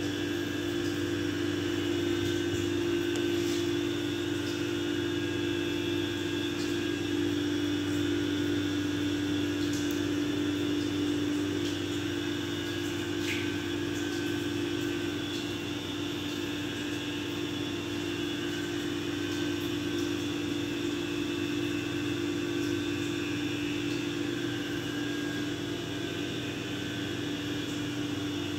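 A steady machine hum with a strong low tone that holds unchanged throughout, with a few faint clicks.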